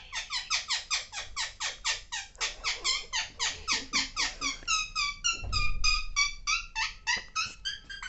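Alexandrine parakeet calling in a fast run of short, harsh notes, about five a second, each dropping in pitch. About halfway through, the notes turn higher and flatter.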